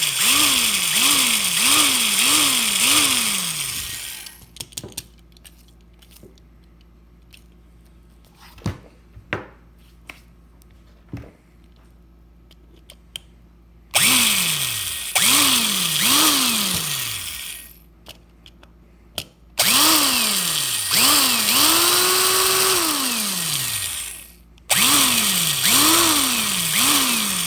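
Cordless power drill run in four loud bursts, its motor whining up and dropping back again and again as the trigger is pulsed, while it drills into the metal base of a die-cast toy car. Small clicks and knocks come in the pauses.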